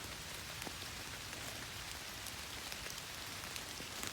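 Steady rain falling on the forest, with scattered sharp ticks of individual drops.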